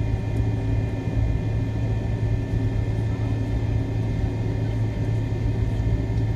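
Cabin noise of a McDonnell Douglas MD-88 taxiing, its rear-mounted Pratt & Whitney JT8D turbofans at low power: a steady low hum with a thin, steady high whine above it.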